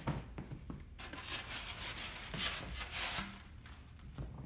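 Cardboard shipping-box packaging being handled, with a scraping, tearing rustle from about a second in that lasts about two seconds, loudest near its end.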